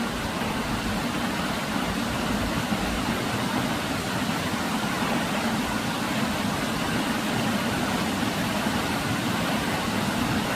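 Steady rush of falling water from a waterfall, an even, unbroken noise with its weight in the low range.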